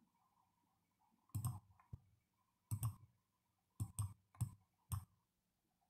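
Computer mouse clicking: about eight short, sharp clicks, several in quick pairs, as points of a trend channel are placed on a chart.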